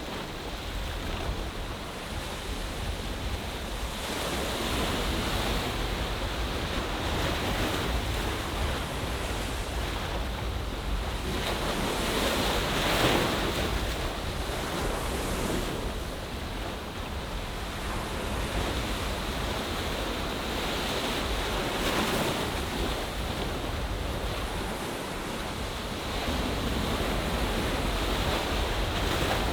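Sea waves washing into a bay, a continuous surf that swells and eases, with its loudest surge about halfway through. A low wind rumble on the microphone runs underneath.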